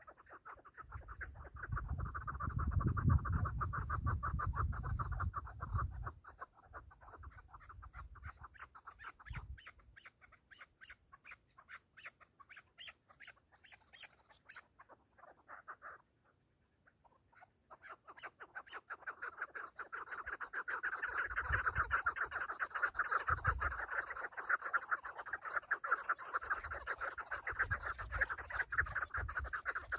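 Chukar partridges calling: a fast, continuous run of repeated clucking notes that breaks off for about two seconds a little past the middle, then starts up again. A few bursts of low rumble, the loudest near the start.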